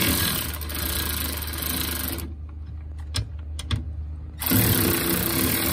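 Milwaukee cordless ratchet running down a 9/16-inch nut on a truck camper bracket bolt: one run of about two seconds, a pause with a few clicks, then a second run starting about four and a half seconds in.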